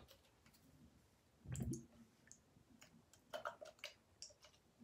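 Faint clicks of a small plastic bottle being handled and its cap worked open, with a short duller knock about a second and a half in.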